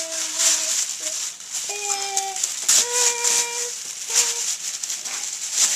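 Wrapping paper being torn off a present in a series of rips. A voice holds short sung notes over it.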